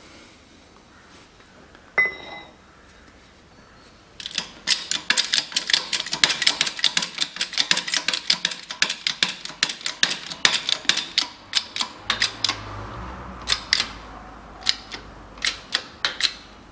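A single ringing metal clank as a steel plate is set on the seal mandrel. Then a shop press is worked to drive a new seal into a Land Rover Defender front hub, with a fast run of sharp clicks, about four or five a second. The clicks thin out to a scattered few from about two-thirds of the way through.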